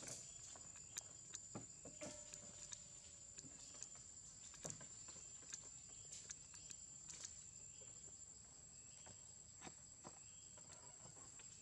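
Faint, steady high-pitched drone of insects, with scattered soft clicks over it.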